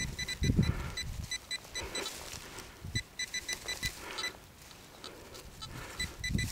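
Handheld Quest pinpointer probing loose soil in a dig hole, giving runs of quick high-pitched beeps as it passes over metal, with soft soil and glove rustling in between; the beeping pauses for a couple of seconds past the middle and resumes near the end.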